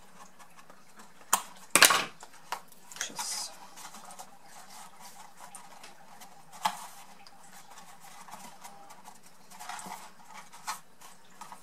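Scissors snip a small corner off stiff card stock about two seconds in. After that comes the handling of the card as it is folded and pressed by hand: scattered light clicks and rustles.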